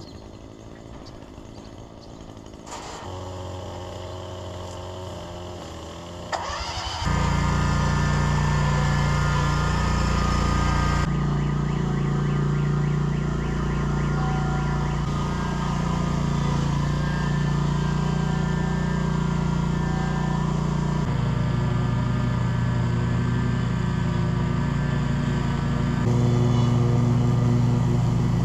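Scag V-Ride 2 stand-on mower's gas engine starting about six seconds in with a quick rise in pitch, then running steadily and loudly.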